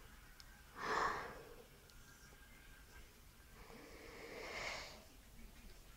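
A woman's catching breaths in a sneezing fit: a short, sharp breath about a second in, then a longer breath that swells over about a second and a half near the end, the build-up before a sneeze.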